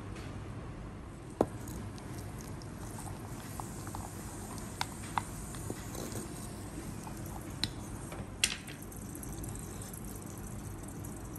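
A wooden spoon scraping fried cashews and raisins in ghee out of a pan into a clay pot of rice porridge, then stirring them through the thick porridge. Several sharp taps of the spoon against the pan and pot stand out, the loudest about a second and a half in and again about eight and a half seconds in.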